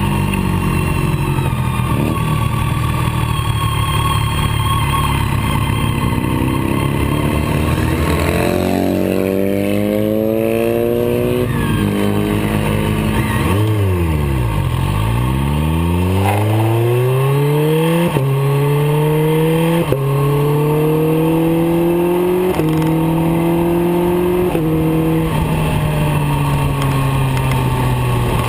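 BMW K1300R's inline-four motorcycle engine under way, with wind rush. The revs rise and fall, dip very low through a tight bend about halfway, then climb again in a run of quick upshifts about every two seconds.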